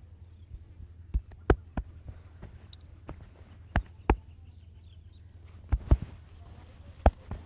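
Sharp hand slaps of a percussive head and back massage: about nine loud strikes, several in quick pairs, at irregular intervals over a low steady hum.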